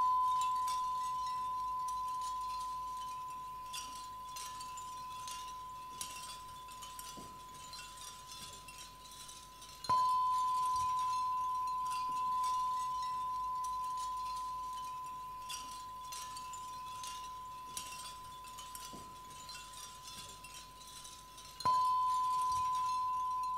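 A struck chime with one clear, high, bell-like tone that rings on and slowly fades. It is struck again about ten seconds in and once more near the end, over faint high tinkling like small wind chimes.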